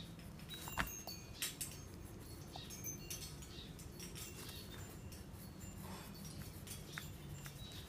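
Faint scratching and occasional light taps of colouring on paper, with a few short clicks.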